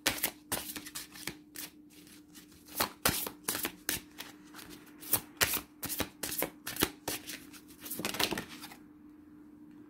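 A deck of oracle cards being shuffled by hand: a quick, irregular run of card flicks and slaps that stops shortly before the end.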